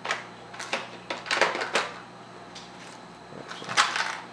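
Hard plastic test-kit case being handled and shut, its reagent bottle and syringes rattling inside: a series of short clicks and clatters, the loudest near the end as the lid closes.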